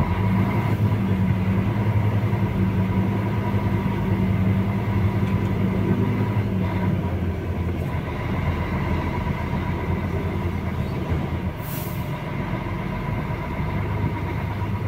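Truck's diesel engine and road rumble heard inside the cab while driving slowly over a potholed road. The engine's low drone is steady for about the first seven seconds, then eases off. A brief hiss comes near the end.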